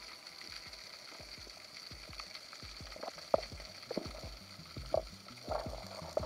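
Underwater sound picked up by an action camera in its housing: a faint steady hiss with a thin high hum, and irregular soft knocks and low thumps that start about two seconds in and come more often and louder toward the end as the diver swims.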